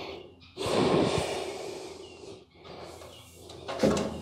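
A man's heavy breathing: a loud rushing exhale about half a second in and another near the end.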